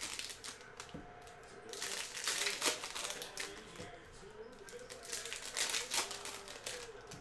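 Plastic trading-card pack wrappers crinkling in several bursts as packs are torn open and handled.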